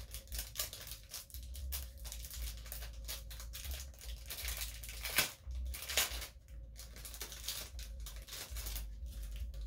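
Thin clear plastic bag crinkling and tearing as a pin on its backing card is worked out of it by hand: an irregular run of crackles, with two sharper snaps about five and six seconds in.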